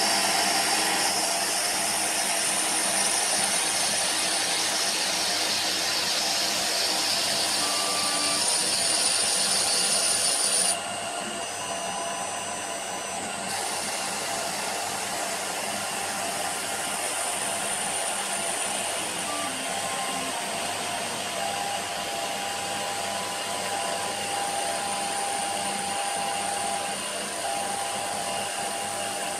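Emco PC50 CNC lathe running an automatic turning pass on a brass rod: a steady motor whine and hiss from the machine. The level drops suddenly about eleven seconds in, and the sound then runs on more quietly.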